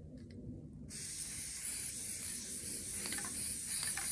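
Aerosol spray can spraying in one long, steady hiss that starts about a second in.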